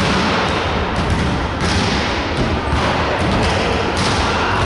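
Volleyball being struck and bouncing: several sharp thumps that echo in a large gym hall, over a steady loud hiss.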